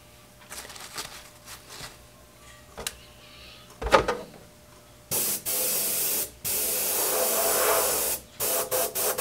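Airbrush hissing as it sprays, steady for about three seconds with one brief break, then cut into several short bursts near the end; the paint thickened with metal flake is thick and does not want to spray well. Before that, a few light clicks and a knock.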